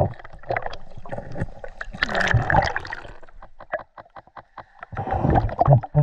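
Underwater sound of gloved hands digging through riverbed stones and gravel: quick runs of sharp clicks and knocks as stones shift, with louder sloshing water noise twice, all heard through a camera held underwater.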